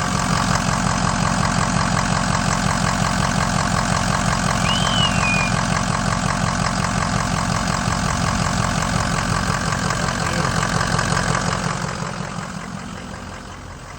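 Engine of a van that had sat unused for two years, idling steadily just after its first start, with a fast even pulsing. It gets quieter near the end.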